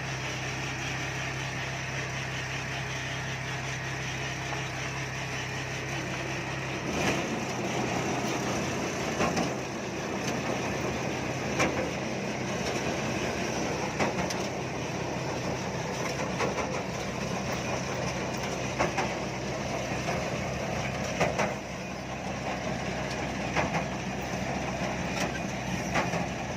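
Combine harvester's engine running steadily with a low hum. About seven seconds in, the sound turns rougher and busier, and from then on a sharp knock or click recurs roughly every two seconds.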